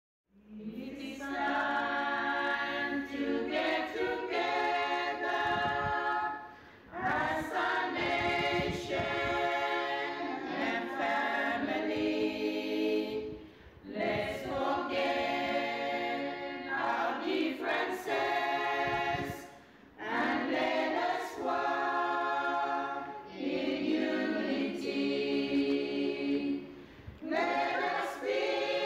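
Choir singing a traditional song from Vanuatu, line by line, with short breaks between phrases; the singing begins just after the start.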